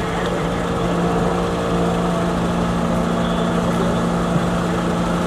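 Fire engines' diesel engines running steadily, a constant droning hum that holds one pitch throughout.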